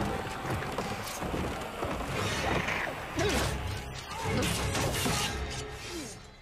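Battle-scene soundtrack from a TV drama: repeated crashes and impacts of combat over a music score.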